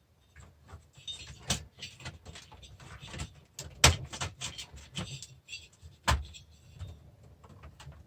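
Clicks, rattles and knocks of the parts and steel casing of an old DVD player being handled during dismantling, with three sharper knocks standing out.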